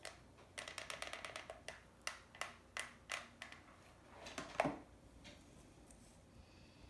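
A run of light, irregular clicks and taps from craft materials being handled on a wooden table, with one sharper click just before they stop, about five seconds in.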